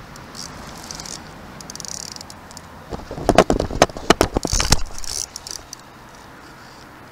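Rain pattering steadily on the river and the kayak. About three seconds in comes a loud burst of clattering knocks lasting nearly two seconds, as the camera and fishing rod are jostled on the kayak while a fish comes on and bends the rod.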